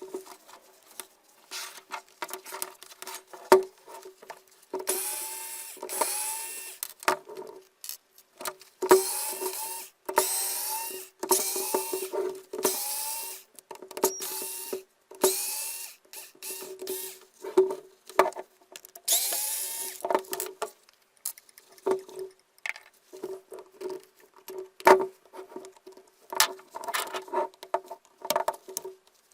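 An electric drill motor run in short bursts of about a second, each whining up in pitch as it starts, among repeated clicks and clatter of tools and parts being handled.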